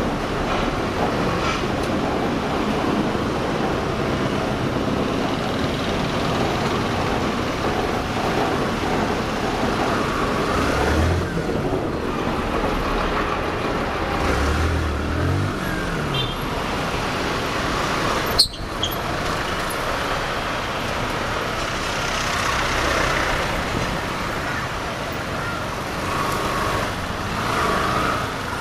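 Dense city-street traffic heard from a motorcycle moving through it: a steady mix of engine and road noise from jeepneys, scooters and trucks. Engines rise in pitch around eleven and fifteen seconds in, and there is a single sharp knock about eighteen seconds in.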